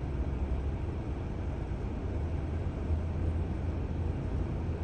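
Airbus A380's jet engines at taxi power, a steady low rumble as the airliner rolls slowly along the taxiway.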